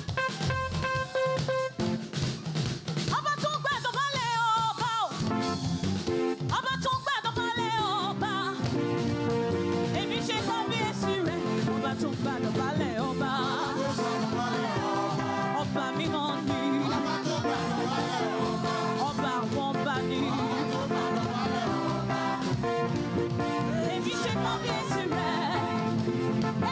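Live praise band music with drums and held instrument chords, and a singing voice that wavers up and down in pitch a few seconds in.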